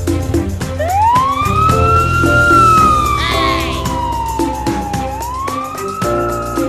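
Children's cartoon background music with a long siren-like gliding tone over it. The tone rises, slowly falls, then rises again, with a brief swirling effect in the middle.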